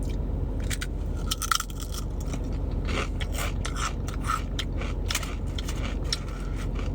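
Crunching and chewing a crisp potato chip, with a quick run of sharp, irregular crackles, over a steady low hum.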